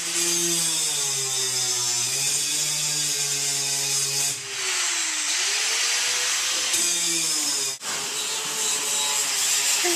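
Handheld power grinder scouring rust off a bus's steel floor, a loud steady hiss of abrasive on metal over a motor whine that dips and recovers as the tool is pressed in. The sound breaks off sharply near the end and picks up again.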